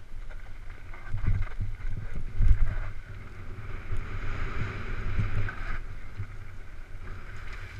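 Mountain bike running fast down a dry dirt trail: wind rushing over the camera microphone and tyres rolling over dirt and stones, with low thuds as the bike hits bumps.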